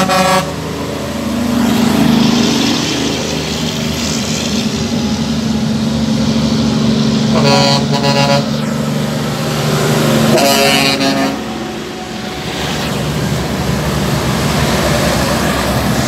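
Heavy diesel tractor-trailer trucks driving past, their engines running steadily. A horn blast cuts off about half a second in, and two more blasts of about a second each sound around the middle, a few seconds apart.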